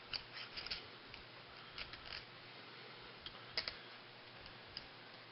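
Faint scattered metal clicks and taps of pliers and a tightly wound recoil starter spring being handled against the starter case, with the sharpest click about three and a half seconds in.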